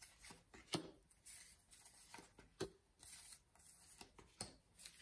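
Tarot de Marseille cards being drawn from a fanned deck and laid face down on a table: faint card rustling with three short taps as cards come down, about a second and a half to two seconds apart.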